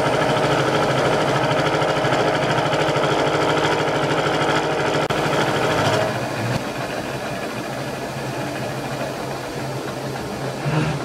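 Milling machine taking a cut of about 1.9 mm off a block of black mild steel. The cut starts suddenly, runs steady and loud for about six seconds, then the cutting noise drops and the machine runs on quieter.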